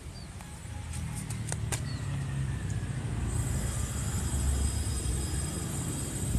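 Small motorcycle engine running on gas fed from a mini portable gas canister, a low rumble that grows louder about a second in. A steady high hiss joins it about halfway through.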